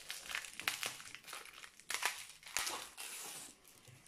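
Crinkling and rustling of the packaging on a rolled diamond-painting canvas as it is opened and unrolled by hand: irregular sharp crackles, with a longer rustle about two and a half seconds in.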